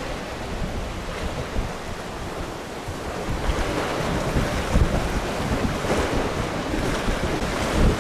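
Strong, gusty storm wind buffeting the microphone, over the rush of wind-driven waves on a choppy lake. The gusts pick up about halfway through.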